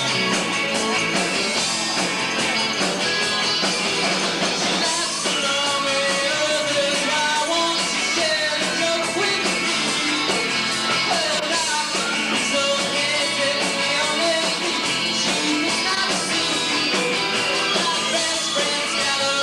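Live rock band playing: electric guitar, bass guitar and drum kit, with a man singing lead into a microphone from about five seconds in.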